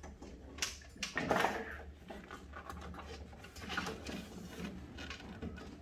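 Handling noises from lifting an ice maker's evaporator and its refrigerant tubing out of the cabinet: scattered light knocks and scrapes, the loudest a brief scrape a little over a second in, over a steady low hum.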